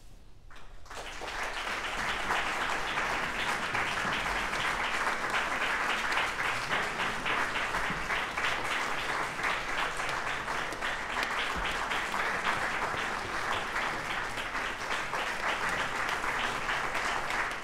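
Audience applause, starting about a second in and quickly building to steady, dense clapping.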